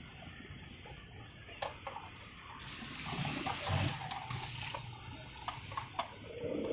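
Hot oil sizzling around a wire basket of potato fries in a frying pot, swelling in the middle, with a few sharp metal clinks of the basket.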